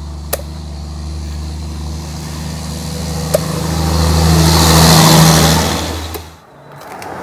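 A motor vehicle's engine running close by, with a steady low hum. It grows louder, with rising road hiss, to a peak about five seconds in, then cuts off suddenly about a second later.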